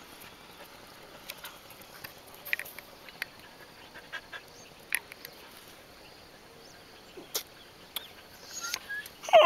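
Street dogs making a few faint short squeaks and whimpers, then near the end one breaks suddenly into a loud, wavering howl.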